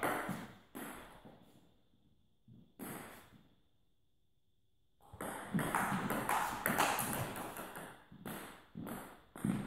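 Table tennis ball knocking off bats and table, with a ringing echo of a big hall. A couple of lone knocks come first, then a gap of about two seconds, then a quick run of hits in a rally.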